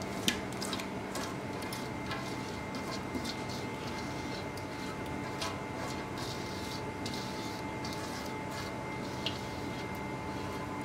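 Thick, wet marinade paste being scraped from a bowl into a metal pot, with soft scrapes and light clicks of bowl and spoon against the pot throughout and a sharper click just after the start, over a steady background hum.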